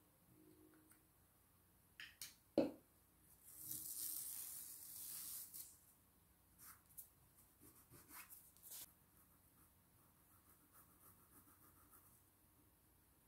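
Brush scrubbing paint onto fabric for about two seconds, a dry hiss, with scattered light taps and clicks before and after; the loudest is a sharp click a little over two seconds in.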